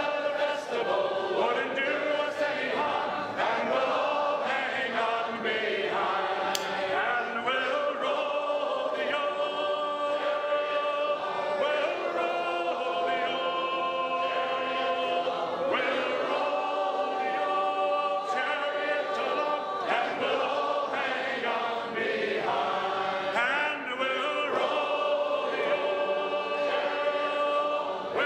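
A group of voices singing together in chorus, holding long notes.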